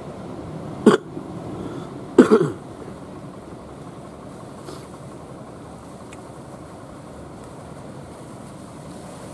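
Steady wash of waves with a wooden fishing boat's engine running as it crosses the surf. Two short, loud, pitched sounds close to the microphone break in, about one second in and again, longer, at about two seconds.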